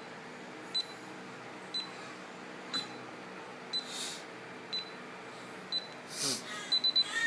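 DSC PC1555RKZ alarm keypad buzzer beeping about once a second during the exit delay while the system arms, then a quick run of three beeps near the end. Two brief soft hissing noises come about four and six seconds in.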